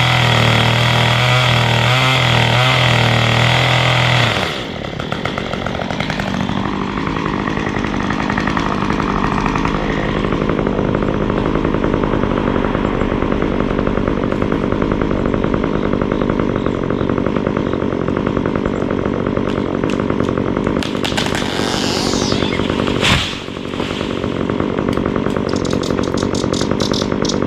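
Chainsaw cutting at full throttle, then dropping to idle about four and a half seconds in and idling steadily. Near the end there is a single loud thump.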